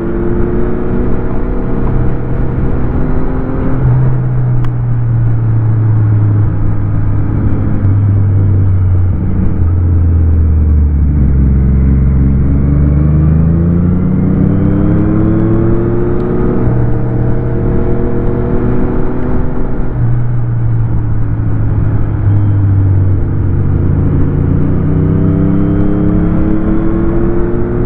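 Motorcycle engine under way on a winding road: its pitch falls as it slows and rises again as it accelerates, twice over.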